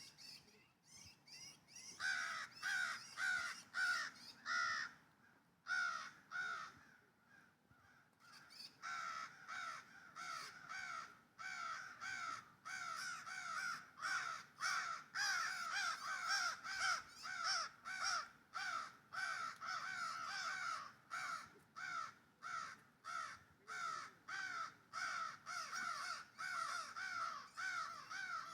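A baby bird calling over and over, a short call falling in pitch about twice a second. It goes on almost without a break after a short pause a few seconds in.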